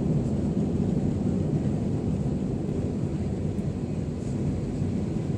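Steady low rumble of an Airbus A321's IAE V2500 engines and rushing air, heard from inside the passenger cabin.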